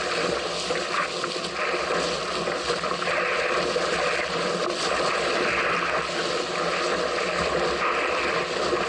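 Water rushing and splashing along a small sailing craft's hull under way in strong wind, with wind buffeting the microphone. A steady, rough rush with no engine.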